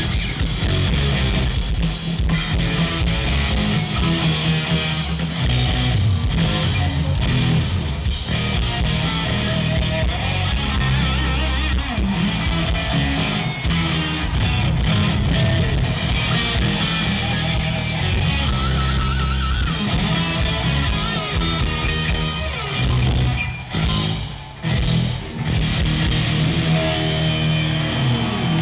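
Hard rock band playing live, loud electric guitars over bass and drums, with a couple of short breaks near the end where the band stops. Heard from within the crowd.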